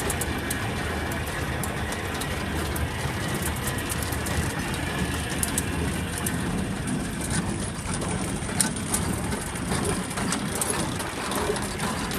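International Harvester 430 hay baler running off a tractor: a steady engine-and-drive rumble with rattling, clicking mechanical clatter.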